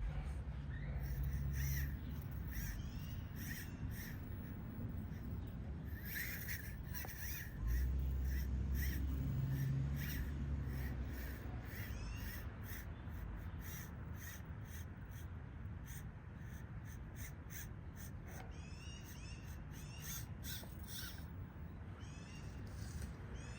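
Birds calling over and over, short repeated calls, some sweeping in pitch. Under them is a low rumble that swells twice: briefly at the start, and for a few seconds about a third of the way in.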